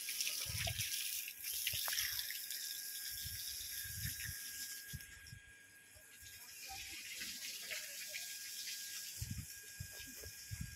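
Water running with a steady hiss, thinning out about halfway through and then coming back, with a few soft low thumps.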